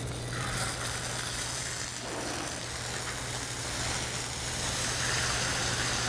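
Marinated dorado fillet sizzling in hot olive oil in a stainless steel frying pan, the sizzle starting as the fillet goes into the oil and growing a little louder in the second half.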